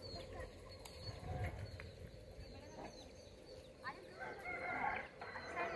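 Faint outdoor ambience: birds calling, with short chirps throughout, and distant voices that grow a little louder from about four seconds in.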